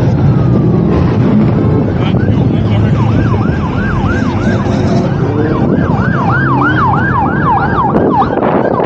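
A vehicle siren sounding in quick up-and-down sweeps, two or three a second, starting about three seconds in and stopping shortly before the end. Car engines rumble steadily underneath.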